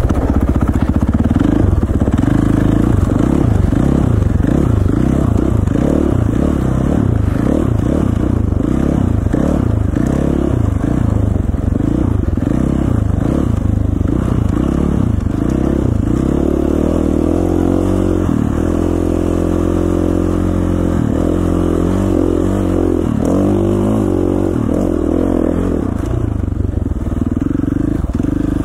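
KTM 450 dirt bike's single-cylinder four-stroke engine running under way, rising and falling over and over with the throttle, then holding steadier for a few seconds past the middle before picking up again.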